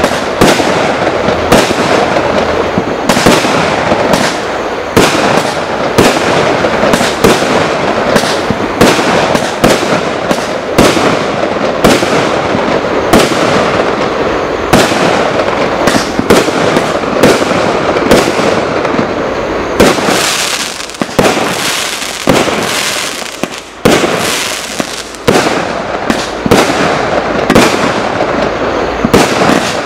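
Fairey III 28-shot barrage firework cake firing: sharp reports about once a second, with bursts and crackling filling the gaps between them.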